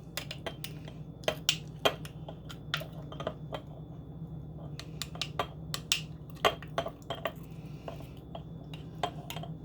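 Spoon and glass jar clinking and tapping in irregular clicks as the onion-and-honey mixture is moved into the jar, over a steady low hum.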